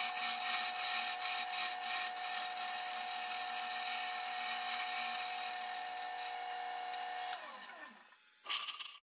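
Wood lathe running with a steady hum while a hollowing tool cuts inside a teak and wenge vessel, a hiss of cutting under it. About seven seconds in the lathe winds down, its hum falling in pitch, and near the end comes a short blast of compressed air from a blow gun.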